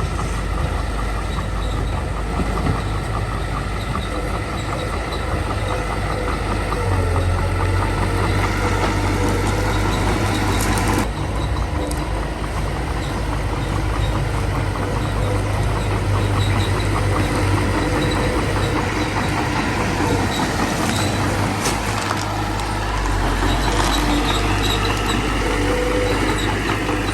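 Small bulldozer's diesel engine running steadily under load, with metallic clanking from the machine throughout.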